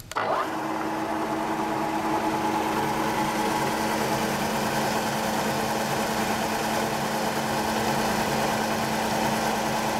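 Spindle of a Southwest Industries ProtoTrak Trak K3 CNC knee mill with a variable-speed head, switched on and running at a steady speed. It starts suddenly right at the beginning, then holds an even hum with a few steady tones.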